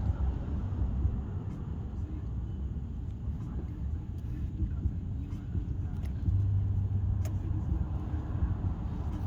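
Low, steady rumble with a deeper hum that swells about two-thirds of the way in, and a few faint clicks.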